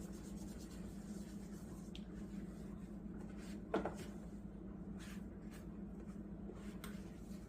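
A damp cloth rubbing and wiping over a coffee maker's outer casing, with one sharp knock about halfway through and a few lighter taps after it.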